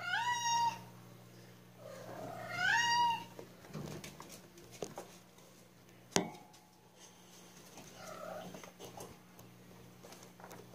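A young kitten meowing twice, each call high and rising in pitch, the second longer. A single sharp knock follows about six seconds in.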